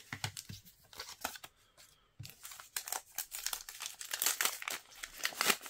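Crinkling of a blind mystery-pack wrapper being handled and torn open: quick irregular crackles, sparse at first, denser from about two seconds in.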